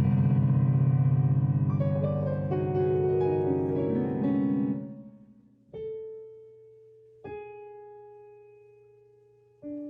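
Piano improvisation: loud, dissonant clusters in the low and middle range, hammered in a fast repeated ripple, die away just before five seconds in. Then three sparse notes or small chords are struck one at a time and left to ring and fade.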